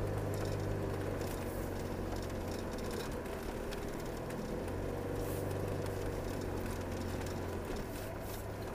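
Car engine and road noise heard from inside the cabin while driving: a steady low drone that dips for a moment about four seconds in and eases off near the end.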